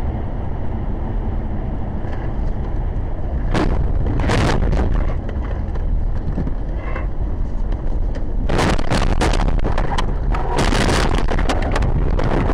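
Car on a snowy road heard from inside the cabin, with steady road noise and two short, loud scraping bursts about three and a half and four seconds in. From about eight and a half seconds there is a long run of loud crashing and scraping as the car leaves the road and goes over the embankment.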